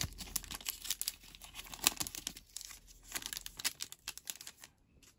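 Foil wrapper of an Upper Deck Rookie Class trading-card pack crinkling as it is torn open and the cards are slid out: a run of small crackles that stops shortly before the end.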